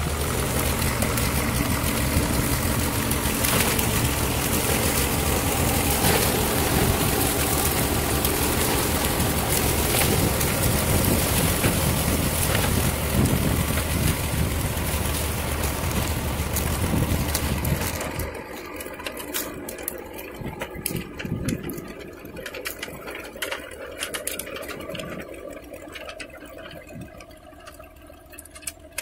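Long farm tractor's engine running steadily under load while pulling a rear-mounted rotary tiller through garden soil. About 18 seconds in the sound drops sharply, then fades further as the tractor moves away.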